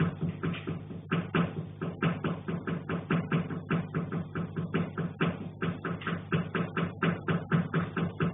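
Fast, even knocking from the attic overhead, about four knocks a second with no break, over a steady low hum.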